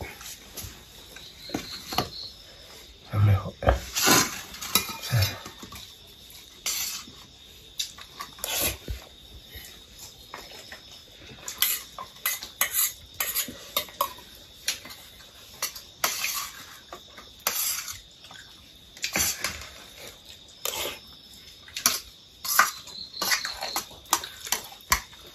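Stainless steel plate and bowls clinking, tapping and scraping as someone eats rice by hand: scattered short clinks throughout, the loudest cluster a few seconds in.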